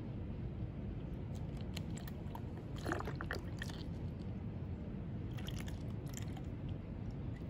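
Isopropyl rubbing alcohol poured in a thin stream from a plastic bottle into a plastic cup: a faint trickle with a few small crackles from the plastic.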